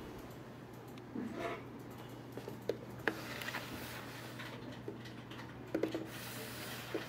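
Faint handling sounds of a cardboard fireworks battery box being turned on a table by hand: small scattered taps, ticks and soft scrapes, over a steady low hum.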